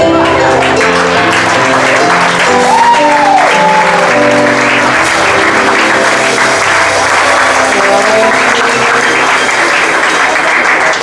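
Audience applause over live band music that keeps playing, both loud and steady throughout.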